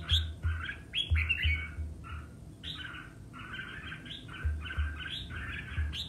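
Red-whiskered bulbul singing its aggressive contest song: quick runs of short, bright chattering notes, several a second with brief pauses between phrases. Dull low thumps sound underneath.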